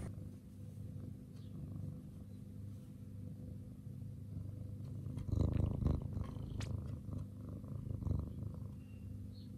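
Domestic cat purring close to the microphone, a steady low rumble that swells louder a little past halfway and again later. It is the purr of a cat seeking affection.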